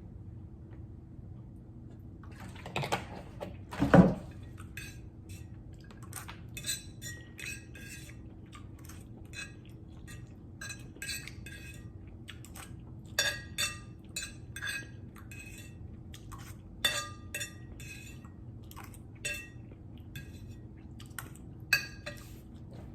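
Metal utensil clinking against a dish in many short, ringing clinks at irregular intervals, with a heavier knock about four seconds in.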